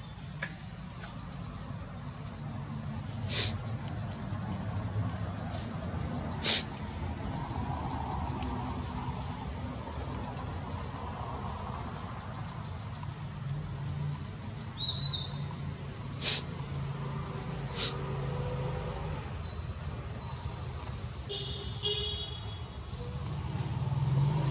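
Forest ambience: a steady, high-pitched insect buzz, with a few short chirps and four sharp clicks.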